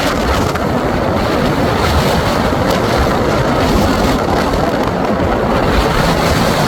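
Steady road and wind noise heard from inside a car moving at highway speed.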